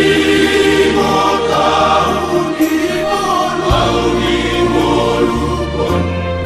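A Batak church choir singing a hymn, with held low bass notes underneath that change pitch a couple of times.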